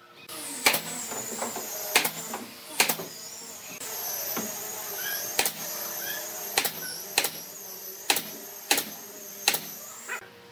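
Pneumatic nail gun firing nails into wooden chair slats: about a dozen sharp shots, one every second or so, over a steady hiss.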